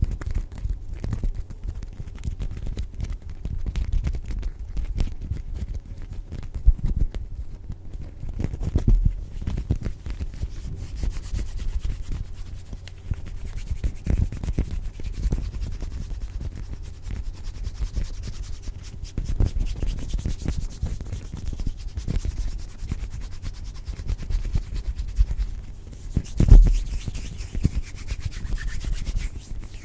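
ASMR rubbing and scratching close to the microphone: a steady, crackly stream of small scrapes, heaviest in the bass, with one louder bump near the end.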